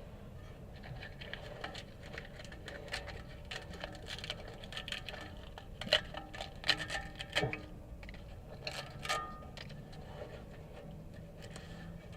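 Irregular cracking, scraping and tapping of an old, brittle exhaust patch of hardened repair compound and crushed aluminum being broken and pried off the exhaust pipe. The sharpest cracks come about six to seven and a half seconds in.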